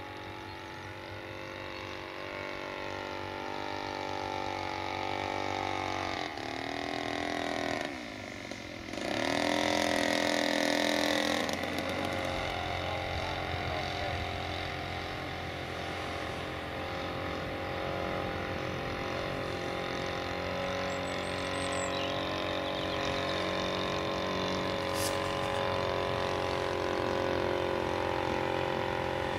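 Engine of a radio-controlled scale model Fieseler Storch running in flight, a steady buzzing drone. About six seconds in the pitch sinks, the sound dips briefly, then it comes back louder for a couple of seconds as the model passes, and settles again.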